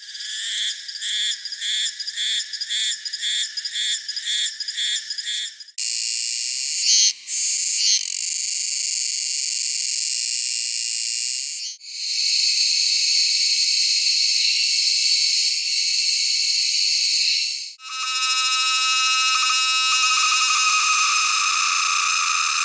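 Several different Japanese cicada species singing in turn, each for about six seconds. First comes a pulsing song of about two pulses a second, then three steady high-pitched buzzing songs, the last of which carries clear ringing tones.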